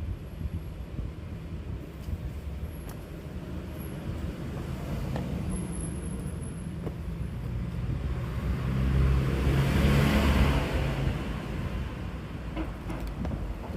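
A motor vehicle passing on the road: its engine and tyre noise grow louder, peak about ten seconds in, then fade away.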